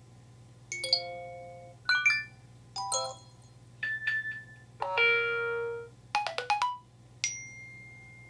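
An iPhone on iOS 7 playing its new text and alert tones as previews, one after another: about seven short, different chimes and synth blips, roughly one a second. One tone near the middle is held for about a second, and a quick cluster of notes follows it.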